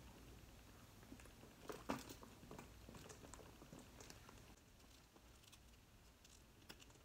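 Near silence with faint handling noise from a smooth calf-leather handbag: soft clicks and taps as its shoulder strap is unclipped, mostly in the first half, the loudest about two seconds in.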